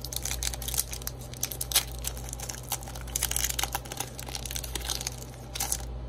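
Foil wrapper of a Pokémon Hidden Fates booster pack being torn open and crinkled by hand, a run of crackling rustles that peaks several times. Under it runs the steady low hum of a room air conditioner.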